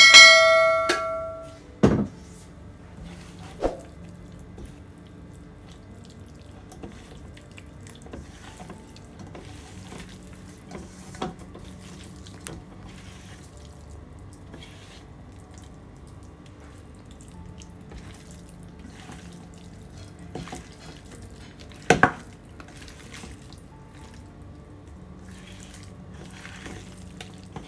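Hands squishing and turning anchovies in wet spice marinade in a steel bowl: faint wet squelches and soft knocks against the bowl, with a sharper knock about 2 s in and another near 22 s. At the very start a bell-like notification chime from a subscribe-button animation rings and fades.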